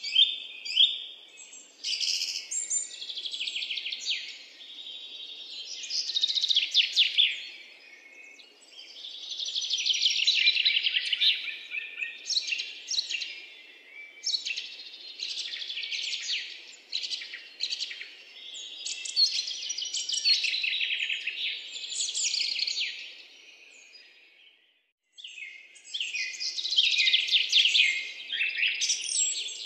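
Birds chirping and singing in a dense, continuous run of rapid high chirps and trills, with a brief break about three quarters of the way through.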